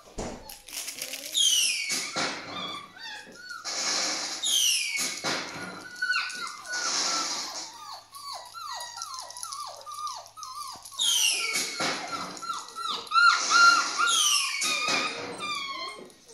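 Five-week-old collie puppies whining and squealing over and over in short, high, falling cries, with a quick run of squeaks about halfway through. They are fussing at the first collars they have been made to wear.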